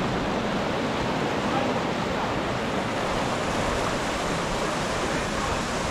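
Steady rush of flowing river water, the Mincio running past the village.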